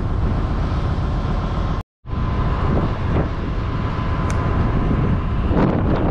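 Steady low rumble of a ship's engine mixed with wind on the microphone, out on the open deck; the sound cuts out completely for a moment about two seconds in.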